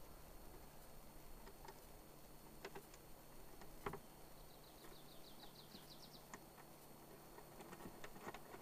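Near silence with a few faint clicks of metal parts as a lock latch's nut is threaded on by hand; the sharpest click comes about 4 seconds in. A faint, quick bird trill sounds about halfway through.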